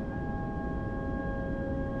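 Slow ambient music of long, softly ringing held notes, one new note entering just after the start, over a steady low noise bed.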